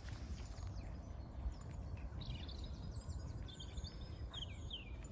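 Small birds chirping, short high calls with several sliding downward, clustered from about two seconds in, over a faint steady low background rumble.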